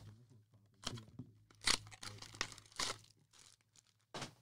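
Trading card pack wrappers being handled and torn open: several short crinkling, tearing rustles of foil and cellophane.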